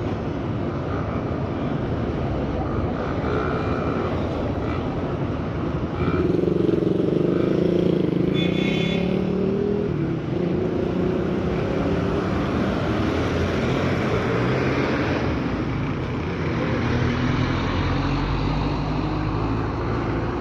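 Street traffic: a steady hum of passing cars and motorcycles, louder from about six seconds in as an engine goes by close.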